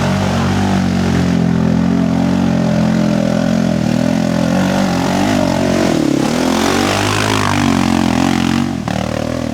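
4x4 ATV engine running steadily. Its pitch dips and recovers about six seconds in, then it falls away near the end.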